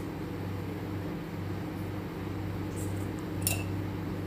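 A steady low mechanical hum from a running appliance or motor, with a faint click near the end.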